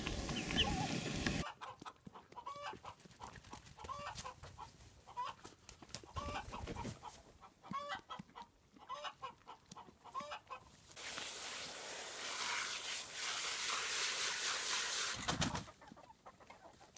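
Chickens clucking: a string of short, repeated calls. A second of low rumbling noise comes first, and a steady rushing noise runs for several seconds in the second half.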